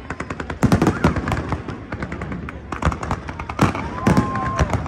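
Fireworks display: aerial shells bursting in rapid clusters of sharp bangs and crackles, loudest about a second in and again past three and a half seconds.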